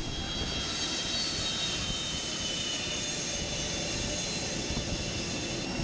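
Jet airliner engine noise: a steady rushing hiss with several high whining tones, some of them drifting slowly downward.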